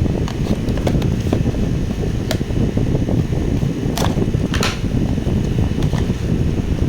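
Steady low rumble with a few sharp crinkles and clicks, from plastic toy packaging being handled and opened.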